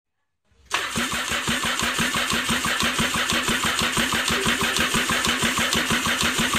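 Starter cranking a Sea-Doo RXT-X 260 RS engine, a supercharged Rotax 1503 three-cylinder four-stroke, without it firing, for a compression test. It sets in under a second in as an even, rapid chugging of about eight compression pulses a second, and the cylinder holds about 125 psi on the gauge.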